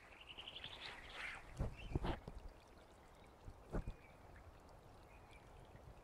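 Shallow forest stream trickling faintly over leaf litter, with a run of gurgles in the first two seconds and a few short low thumps.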